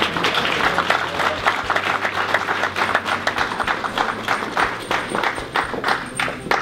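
Small audience applauding, the clapping thinning out toward the end and stopping abruptly.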